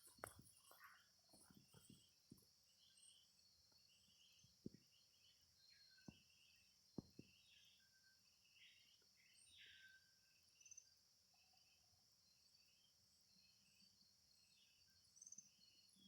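Faint tropical forest ambience: a steady high insect drone, with short bird chirps repeating throughout and a few soft low knocks, mostly in the first seven seconds.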